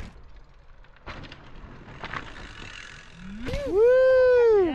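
Mountain bike rolling over rough trail, a rumble of tyres and frame with a few sharp knocks. About three seconds in, a rider lets out a long, loud whoop that rises, holds and falls in pitch.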